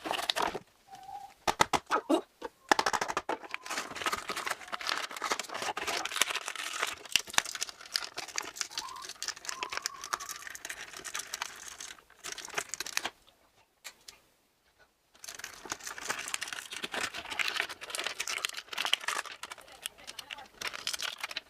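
Toy packaging being torn open and crinkled by hand, a run of crackling and ripping with a few brief pauses.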